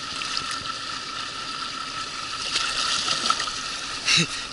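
Water splashing and sloshing as a small hooked taimen thrashes at the surface beside an inflatable boat, over a faint steady hum. A brief louder splash or knock comes near the end.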